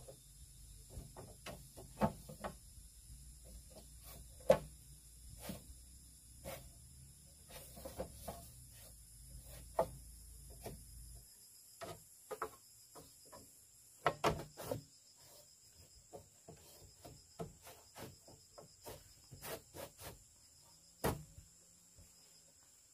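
Split bamboo slats and poles knocking and clattering irregularly as they are handled and fitted into a bamboo frame, with a few sharper knocks. Insects call steadily in the background.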